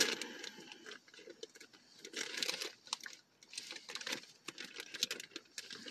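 Faint crinkling and rustling of a small plastic toy bag being handled and picked open, with a few soft clicks.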